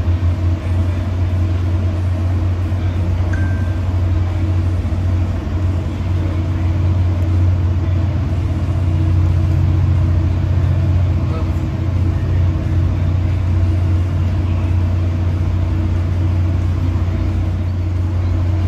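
Steady low drone and hum inside a Tri-Rail commuter train coach as the train pulls out of the station and gathers speed, getting a little louder about eight seconds in.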